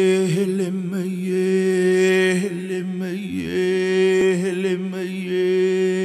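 A man's voice chanting unaccompanied in long held notes, the pitch wavering briefly between them.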